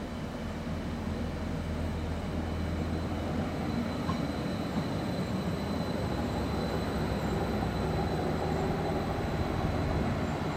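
Stadler GTW (Spurt) diesel multiple unit rolling slowly into a station and slowing almost to a stop. The diesel engine of its central power car and the wheels on the rails make a low rumble that grows louder as the power car comes level.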